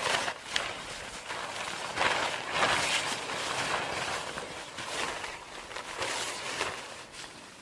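Snow crunching in a series of irregular crunches, the loudest cluster about two to three seconds in.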